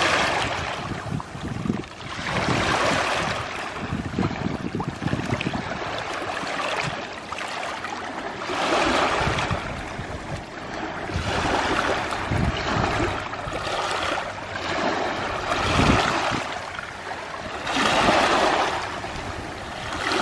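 Small waves washing up on a stony shore, each wash swelling and fading every few seconds, with wind rumbling on the microphone.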